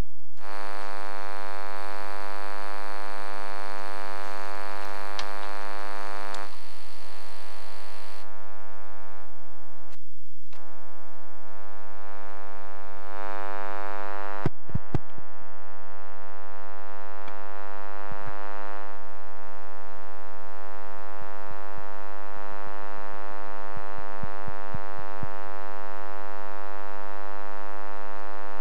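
Steady electrical buzz with many even overtones, changing in tone a few times, typical of interference in a sound system. Several sharp clicks and knocks come in the middle and again later, like a microphone being handled.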